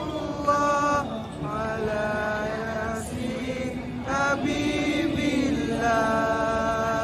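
A voice chanting an Islamic song in long drawn-out phrases, with the last note held from about six seconds in.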